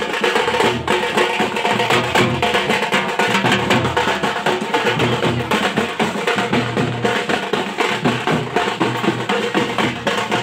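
Loud music with fast, steady drumming and held melodic tones over it.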